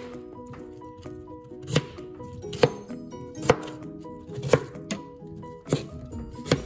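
Chef's knife chopping peeled potatoes on a cutting board, with sharp knocks of the blade on the board about once a second. Soft background music with held notes plays underneath.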